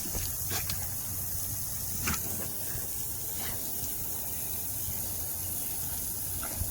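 Lawn sprinkler spraying water, a steady hiss with a few faint ticks.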